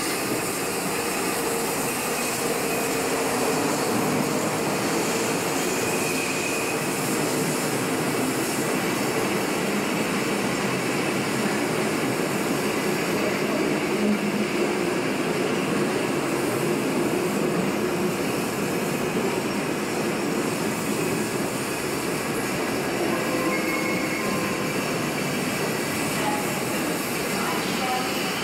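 Train of Silberling passenger coaches hauled by a DB class 110 electric locomotive rolling slowly past, a steady rumble of wheels on rail with a few brief high squeals as the coaches take the curve.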